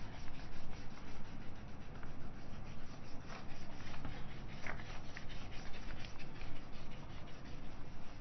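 Whiteboard being wiped with a duster: a fast run of short rubbing strokes against the board.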